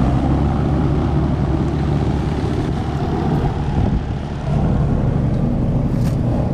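Air-conditioner condensing units running: a steady fan whoosh over a low, even hum.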